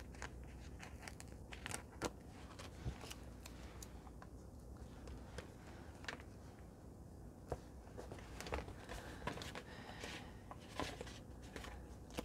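Sticker sheets and paper being handled: scattered soft rustles, crinkles and light taps as a sticker is peeled off its backing and sheets are leafed through.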